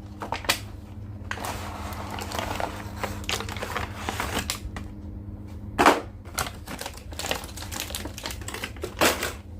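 Plastic action-figure parts and packaging being handled: irregular sharp clicks and snaps with rustling, the loudest clicks about half a second, six seconds and nine seconds in.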